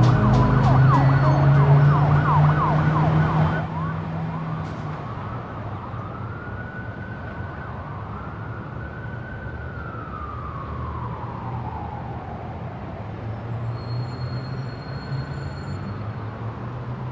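A siren wailing slowly: it rises, holds high, falls away, then rises again, over a low steady hum. Music plays underneath at first and cuts off about three and a half seconds in.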